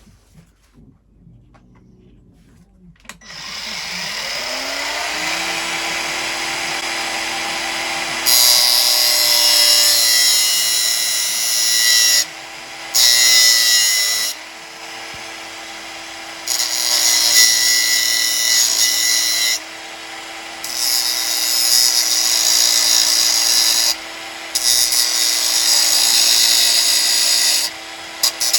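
Angle grinder spinning up with a rising whine about three seconds in, then grinding the welded-on steel sprocket in repeated loud, hissing bursts of several seconds each, with short gaps where only the motor's steady whine is left.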